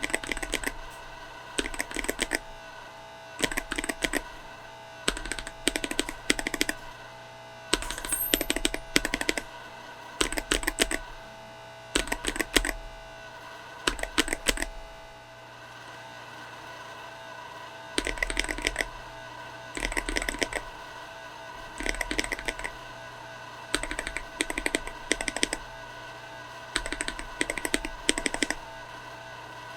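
Typing sound test on a mechanical keyboard fitted with Akko CS tactile switches: short bursts of rapid keystrokes, each a second or so long, repeated about every two seconds. There is a longer pause around the middle.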